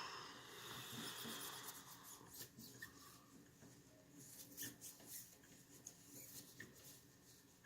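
Faint handling noises while a pistol is being cleaned: a soft rubbing hiss over the first two seconds, then light scattered clicks and scratches.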